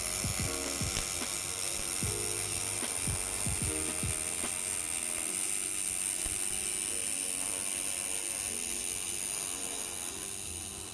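Pulsed MIG arc welding aluminium with AlMg5 filler wire under pure argon: a steady, dense crackling buzz with a thin high-pitched tone over it.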